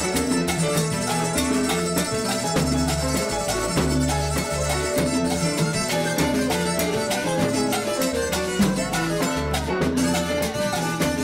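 Live salsa band playing, with an electric violin soloing over a pulsing bass line and percussion.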